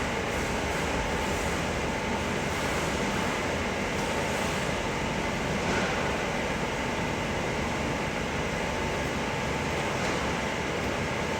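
Steady rushing noise with a faint, even hum running through it, unchanging throughout.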